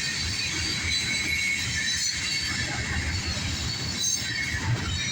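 Freight train tank cars rolling past with a steady rumble of wheels on rail, and a high-pitched squeal of wheels over it.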